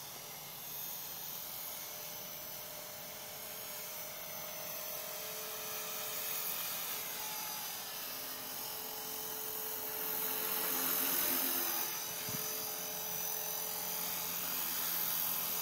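Small electric radio-controlled helicopter flying: a steady whine of its electric motor and rotor buzz, holding a few even tones. It grows louder from about ten seconds in as the helicopter comes in low over the grass.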